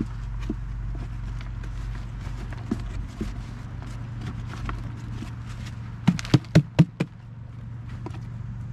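Grey plastic plant tub being tipped out onto a heap of potting soil: soil crumbling and rustling with small clicks, then about six seconds in, five quick knocks on the plastic tub to shake the last of the soil loose.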